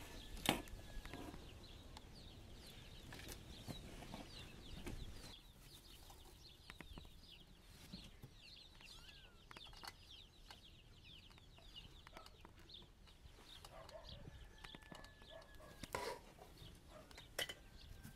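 Faint outdoor birdsong: many short, high chirps, with a few softer, lower calls and a couple of light clicks near the end.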